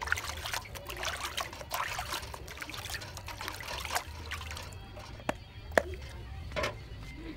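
Hands washing fish pieces in a steel bowl of water: splashing and sloshing for the first four seconds or so, then a few sharp knocks, the loudest about six seconds in.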